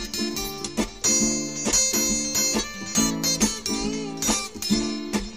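Two guitars playing an instrumental break between sung verses, chords strummed in a steady rhythm.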